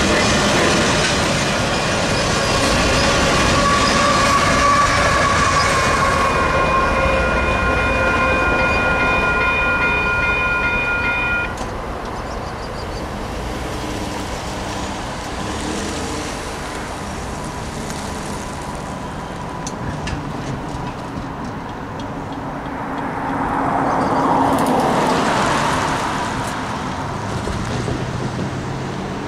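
Freight train of covered hopper cars rolling through a railroad crossing, wheels clacking over the rails, under the crossing's steady ringing bell. About eleven seconds in, the bell cuts off as the train clears and the gates begin to rise. Afterwards there is quieter background noise, with a swell of a passing road vehicle near the end.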